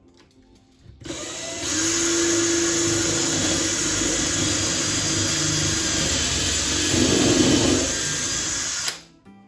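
Power drill running for about eight seconds while drilling into the cabinet units. It starts about a second in, gets louder for a moment shortly before the end, then cuts off.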